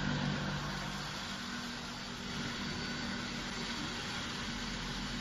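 Stainless steel powder-and-liquid mixing tank running, its motor and agitator giving a steady whirring noise with a faint hum.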